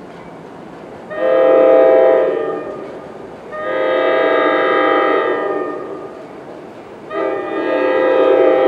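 Horn of an approaching NJ Transit train sounding three long blasts of a multi-note chord over a low rumble, the third blast still going at the end.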